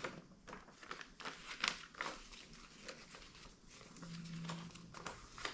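Paper rustling and crinkling: a folded instruction leaflet and light cardboard packaging being handled, with irregular crackles.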